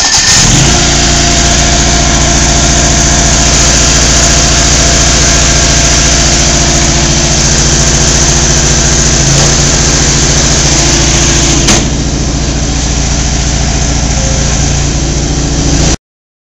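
John Deere LX188 riding mower's 17 hp liquid-cooled V-twin running steadily, loud, just after a cold start. About twelve seconds in there is a click and it runs a little quieter; the sound cuts off suddenly near the end.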